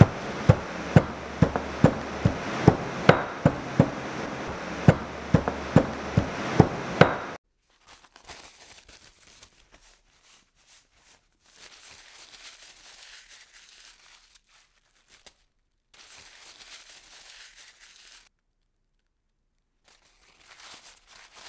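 Garlic cloves crushed with a stone pestle in a stone mortar: regular knocks, about three a second, over a grinding rasp, stopping about seven seconds in. Then a knife slicing through a block of tempeh on a wooden cutting board, much quieter, in three short stretches.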